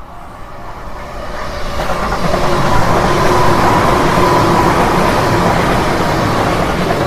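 A vehicle passing at the level crossing, growing louder to a peak about three to five seconds in and then easing off, with a steady tone running through the loudest part.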